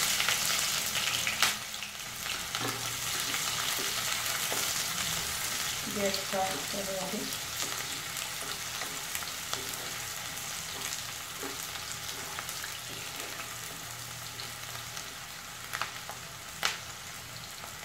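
Chopped onions sizzling in hot oil in a kadhai. The hiss is loudest at the start, just after they go in, and slowly dies down as they fry. A spatula stirring them scrapes and clicks against the pan now and then.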